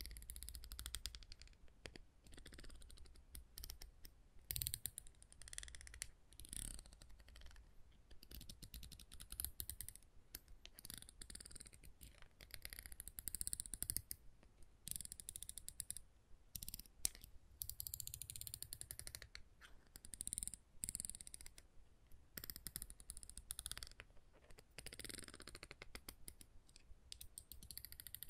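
Quiet, quick and irregular tapping and clicking on small wooden objects, with some scratching.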